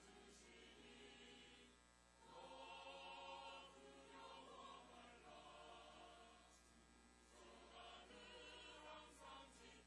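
Mixed church choir of men and women singing a hymn in Korean, recorded faintly; the voices swell louder about two seconds in.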